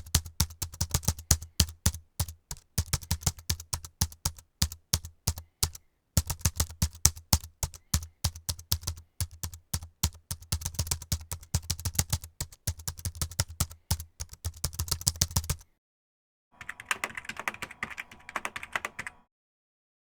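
Typing on a computer keyboard: fast runs of sharp key clicks, each with a low thud, broken by short pauses. After a sudden cut to silence about 15 s in, a second, softer and busier burst of typing lasts a couple of seconds and stops.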